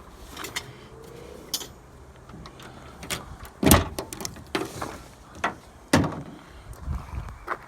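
Scattered knocks and clanks of scrap metal being handled and moved about, with two louder strikes about halfway and three quarters of the way through.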